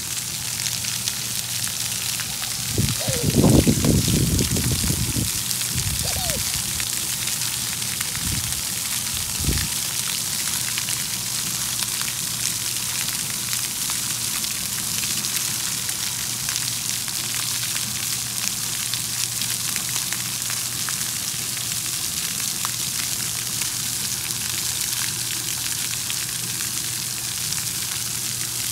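Splash pad water jets hissing steadily, spray pattering on wet concrete. A brief loud rumble comes a few seconds in, followed by two short low thumps.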